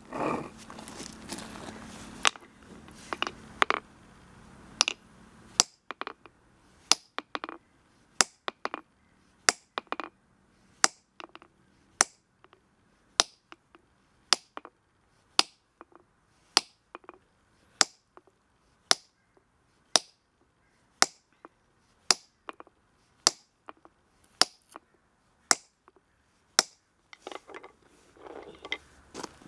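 Steel hammer striking a granite block in a steady series of sharp, ringing clinks, about one a second, as the block is scored along a chalked line to split it. A few irregular knocks and the scrape of stone being moved come in the first few seconds.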